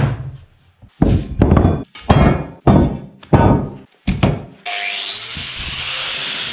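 About half a dozen heavy knocks as a curved wooden leg piece and flat steel plates are set down on a wooden plank floor. About two-thirds through, a power tool starts with a rising high whine and then runs steadily.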